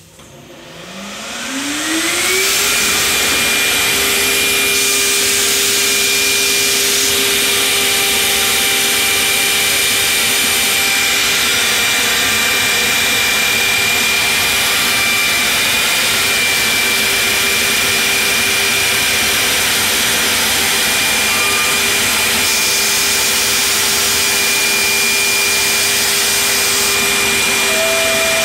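Builders Automation CNC stair router spindle motor spinning up with a rising whine over the first two seconds, then running at a steady high whine over a loud rushing noise as the router bit cuts into a pine board. A second, higher tone joins near the end.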